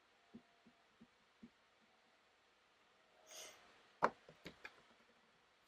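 Quiet bench work: a few faint light taps, a short breathy hiss, then one sharp click followed by three softer clicks, as small tools and a tiny part are handled on the fluxed board pads.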